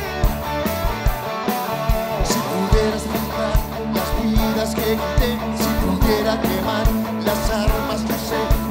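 Live rock band playing: drum kit, electric guitars and electric bass, with a steady drum beat.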